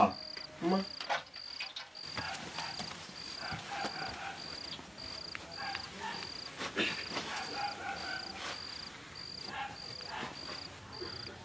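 Cricket chirping steadily, one short high chirp about every 0.6 seconds, with a few faint clicks and knocks.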